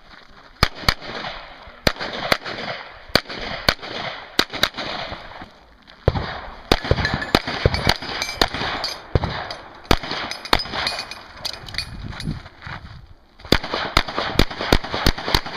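Pistol shots fired in strings during an action pistol course of fire: scattered single shots and pairs, a busier run in the middle, and a fast string of about eight shots near the end.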